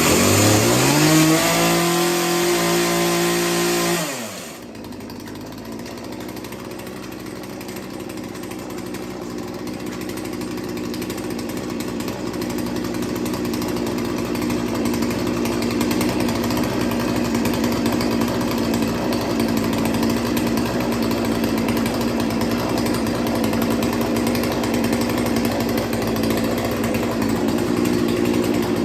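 Two-stroke chainsaw engine running at higher revs, then dropping back about four seconds in to a steady idle, which grows slightly louder over the next several seconds. It is idling on a freshly adjusted carburetor idle setting.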